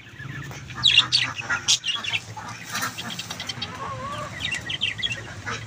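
Chickens clucking and small cage birds chirping, with a few sharp clicks. One wavering call stands out about four seconds in.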